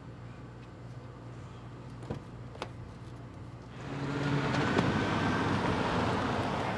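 A car's engine and tyre noise swells about four seconds in and carries on, over a low steady hum with two faint clicks before it.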